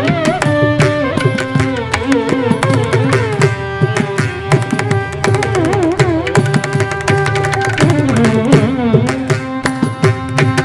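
Carnatic violins playing a swarajati in raga Bhairavi, with gliding, ornamented phrases, over continuous mridangam strokes in Mishra Chapu tala, the seven-beat cycle.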